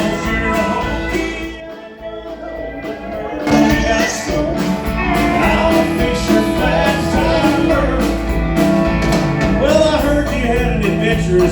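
Live country-rock band playing, with no lead vocal yet. The music drops away briefly about two seconds in, then the full band comes back in.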